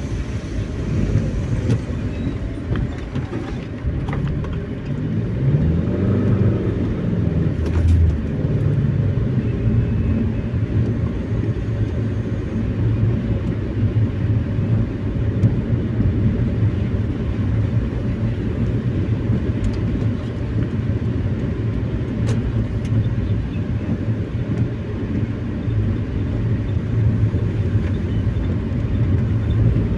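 A road vehicle driving, heard as a steady low rumble of engine and tyres. About five to eight seconds in there is a brief rising-then-falling engine tone.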